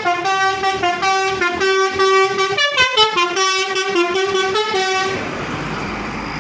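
A tour bus's basuri telolet horn playing a quick melody of loud, stepped musical toots, a new note every quarter to half second. The melody stops about five seconds in and gives way to steady background noise.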